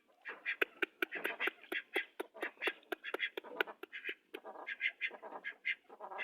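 Birds calling over and over in short, rapid calls, several a second, with sharp clicks mixed in among them.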